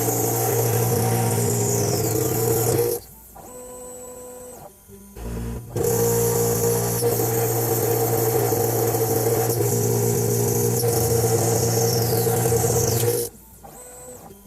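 CNC machine running as it machines an electrical enclosure: a steady motor hum with a high hiss. It cuts off abruptly about three seconds in, starts again near six seconds and stops again near the end.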